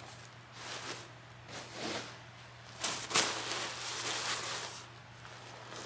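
Paper rustling and soft handling noises as an old rare book's pages are opened and the book is moved about on a fabric book pillow, with the sharpest rustle about three seconds in.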